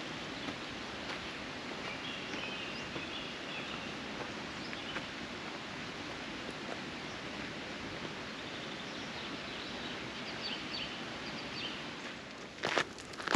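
Outdoor ambience: a steady rustling hiss with a few faint bird chirps, and a couple of sharp thumps near the end.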